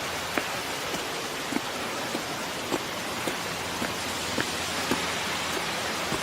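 A steady hiss of water with a light click about every half second, in the pace of footsteps on the trail.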